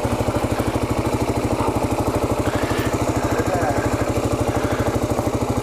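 Kawasaki KLR650's single-cylinder engine idling steadily, an even beat of about a dozen firing pulses a second.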